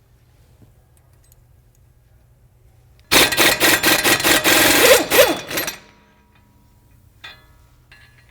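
Power tool, most likely an impact wrench, hammering for about two and a half seconds in rapid repeating pulses as it spins a nut off the Jeep's front hub, then stopping.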